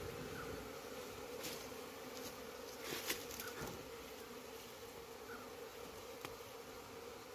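Honeybees buzzing steadily as a swarm around their nest in a rock crevice, an even drone throughout. Brief rustles and a sharp click about three seconds in come from a hand working among the leaves and rock.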